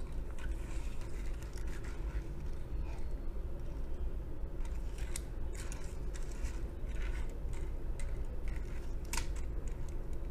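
Small die-cast metal toy car pushed back and forth by hand on a hard tabletop: its little wheels rolling with short scrapes and scattered light clicks, one sharper click near the end.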